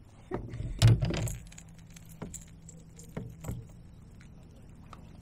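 Clinking and knocking of a wake bait's metal treble hooks and a small largemouth bass being handled while the lure is unhooked: a loud cluster of clicks about a second in, then a few lighter clicks.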